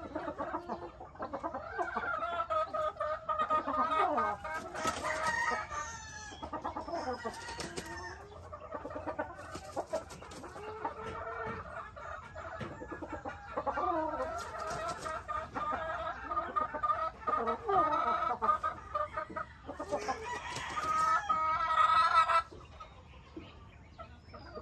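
Sweater gamefowl chickens clucking and calling on and off, with a rooster crowing. The loudest crow comes near the end and stops sharply.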